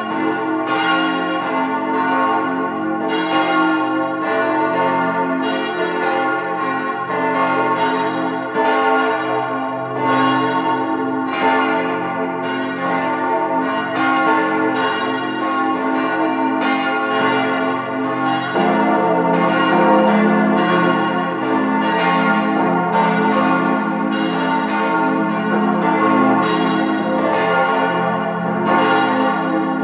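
The 1904 Rüetschi church bells of the Rorschach Reformed town church, a four-bell ring tuned F–A–c–f (an F major chord), swinging in full peal with overlapping strokes and long ringing hum. About two-thirds of the way through, the deep low tones grow stronger.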